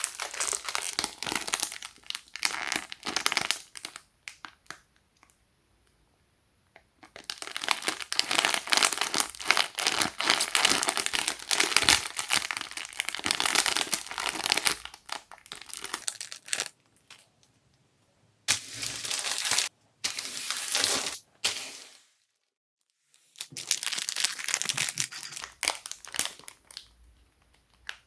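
Plastic packaging crinkling and tearing in irregular bursts as LEGO collectible minifigure packs are handled and opened, with short pauses between bursts.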